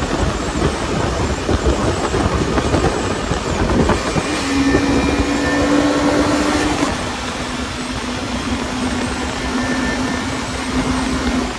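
KTM Duke 250 single-cylinder engine at highway cruising speed, heard from the rider's seat under heavy wind rush on the microphone. A steady engine note comes through about four seconds in and drops slightly in pitch and loudness about seven seconds in.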